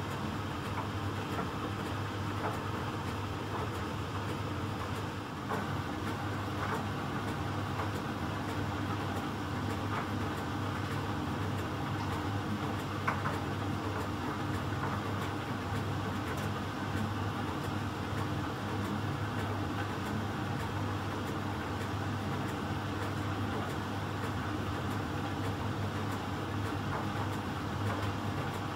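Miele Professional PT 7186 XL commercial tumble dryer running steadily in its heated drying phase, with the drum motor and heating blower humming as a load of rags tumbles in the drum. A few faint light clicks come through the hum.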